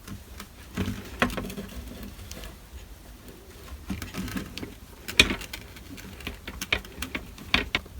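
Irregular clicks and light knocks of a screwdriver and small screws against the plastic hatch-button housing as the screws are driven back in, threading tightly into the plastic. The sharpest clicks come about a second in, just past five seconds and near the end.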